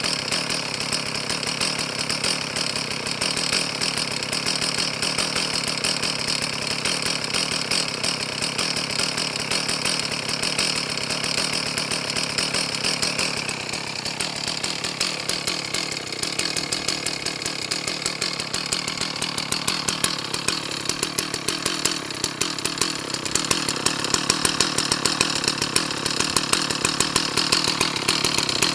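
Stihl 034 two-stroke chainsaw engine running continuously. Its pitch drops about halfway through, and in the last part the running becomes more uneven and pulsing.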